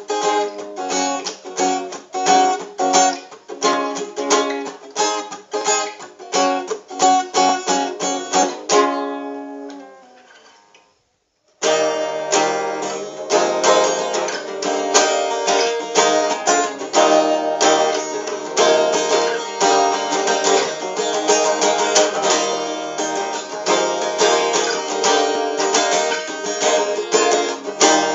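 Groovin GAS150NM small 12-fret acoustic guitar being played: quick picked notes and chords, ending on a chord left to ring out and fade almost to silence. Playing starts again about eleven and a half seconds in, fuller and denser.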